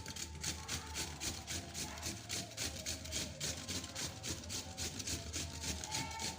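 Radish being grated by hand, a steady run of rasping strokes at about three a second.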